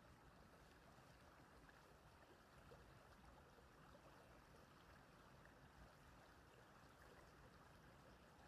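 Faint, steady running water of a small stream.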